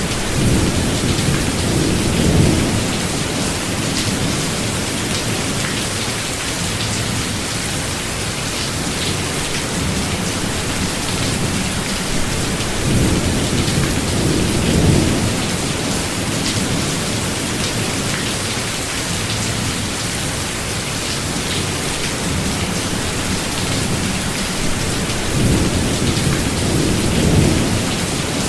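Rainstorm: steady rain hissing, with low rolls of thunder rumbling under it three times, each lasting a few seconds.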